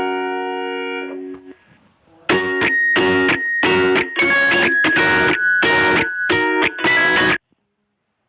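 Background music: a held chord fades out, then a run of about eight strummed guitar chords that cuts off suddenly near the end.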